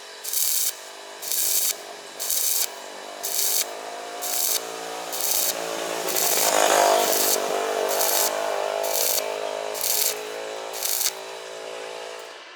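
Rhythmic rasping strokes on metal, about one a second, each lasting about half a second, over a steady low hum.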